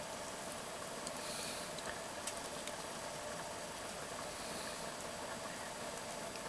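Faint steady hiss with a few light clicks as a plastic fork picks at pan-fried lake trout in a steel frying pan.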